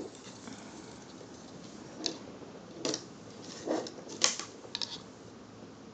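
A few short clicks and rustles from handling the case fans and their plastic packaging, about five spread over the middle seconds.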